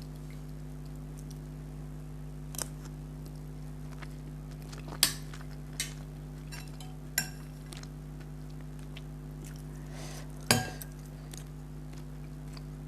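Utensil clinking against a plate or bowl during a meal: about five sharp clinks, a few seconds apart, some ringing briefly. Under them runs a steady low hum.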